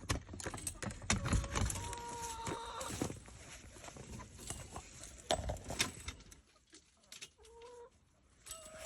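Hens clucking with a few short calls, over a run of clicks and knocks that are dense for the first six seconds and then thin out.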